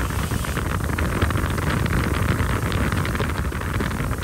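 Bench grinder's wire wheel running steadily against a rusty steel club hammer head, a continuous rasping hiss as it scours rust off the metal.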